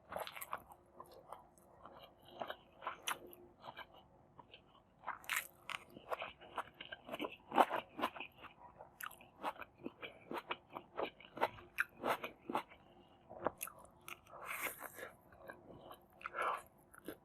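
A person eating close to the microphone: irregular chewing and biting, with sharp crunches and wet clicks of the mouth, the loudest about halfway through.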